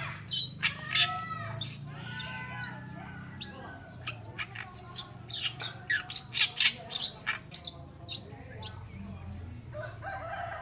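Oriental reed warbler singing: a long, varied string of quick chattering notes and short gliding phrases, coming fastest and loudest in the middle.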